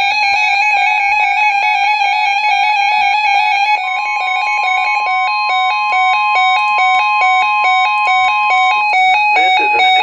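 Weather radio alert tones: an electronic alarm beeping rapidly at one pitch, then stepping back and forth between pitches. A single steady pure alarm tone sounds over it for about five seconds from about four seconds in, the warning alarm that precedes a weather radio warning.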